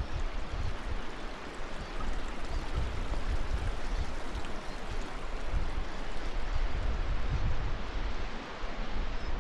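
Steady rush of flowing water, like a mountain stream, with gusts of wind buffeting the microphone underneath.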